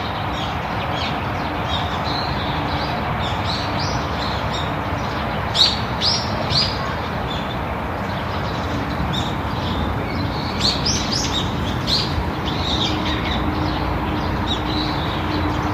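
Songbirds chirping in clusters of short, high notes, with a busier spell about six seconds in and again from about ten to thirteen seconds, over a steady background rush.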